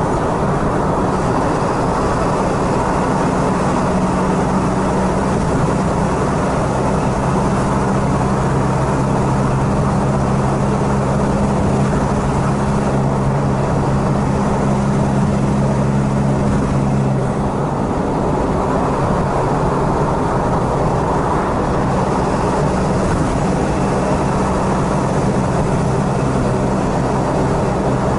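Steady engine and road noise of a vehicle cruising at highway speed, heard from inside the cabin. A low drone runs under the noise and fades about two-thirds of the way through.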